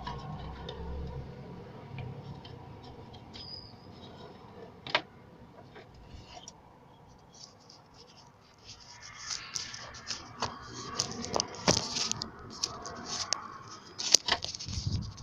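Hand tools and metal parts being handled during engine-bay work: scattered sharp clicks and knocks, one loud click about five seconds in, then a busier run of clicking, knocking and scraping from about nine seconds on.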